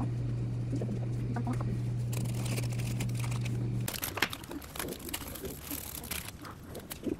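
A steady low hum that stops abruptly about four seconds in, followed by the crinkling and rustling of a plastic instant-noodle wrapper and a torn seasoning sachet as the noodle block is pulled out and the flakes are shaken over the bowl.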